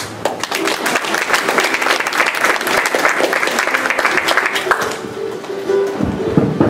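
Audience applauding for about five seconds, the clapping fading out, followed by a ukulele playing a few quiet notes.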